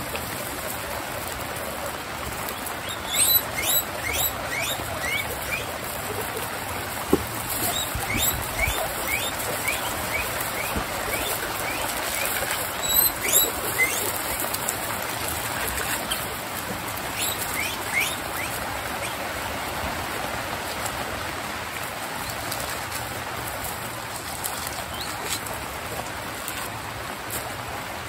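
Guinea pigs wheeking, short series of rising squeals in bursts, over the steady hiss of heavy rain. A single sharp click comes about seven seconds in.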